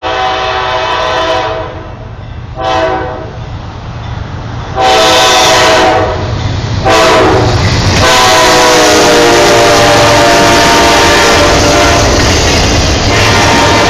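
Diesel freight locomotive's air horn sounding in four blasts, a short one among longer ones, as the train closes in. As the locomotive goes by, the horn gives way to the loud, steady rumble and clatter of the freight cars rolling past.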